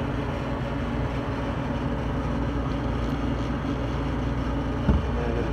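Walk-in cooler's drop-top condensing unit running: a steady mechanical hum and whir. A single short knock comes about five seconds in.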